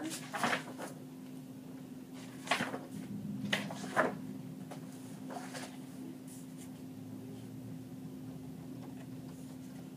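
Pages of a drawing folder being flipped and handled: several short rustles and clacks, most in the first half, over a steady low hum.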